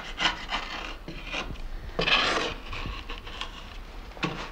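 Long-handled hollow knife shaving the poplar wood of a clog in a series of short scraping strokes, with one longer, louder stroke about two seconds in.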